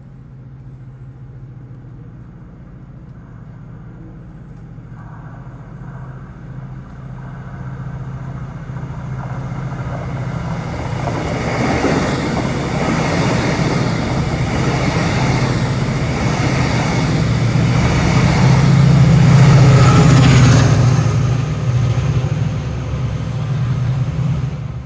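Passenger train hauled by Class 68 diesel-electric locomotive 68029 passing at speed. A steady low diesel drone is joined by a growing rush and rumble of wheels on rail as the train approaches. The noise is loudest a few seconds before the end, then cuts off suddenly.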